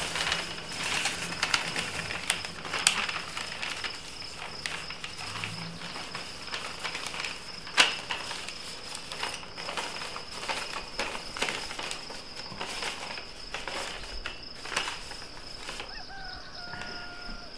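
Steady high-pitched chirping of insects, with scattered short clicks and rustles over it. Near the end a faint held tone comes in.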